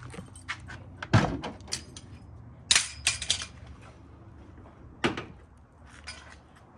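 Pontiac Trans Am's steel hood being handled and shut: a heavy knock about a second in, a burst of metal clatter a couple of seconds later, and another knock about five seconds in as the hood comes down closed.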